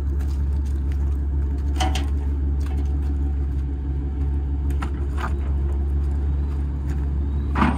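Pickup truck engine idling as a steady low hum, with a few scattered knocks of wood being handled (the saw-blade crate and a plank against the tailgate); the loudest knock comes near the end.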